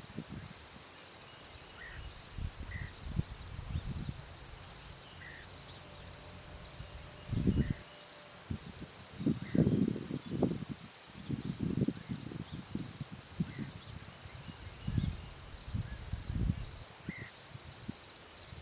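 Insects trilling steadily in two high-pitched, fast-pulsing bands, with irregular low rumbles underneath, loudest about eight to eleven seconds in.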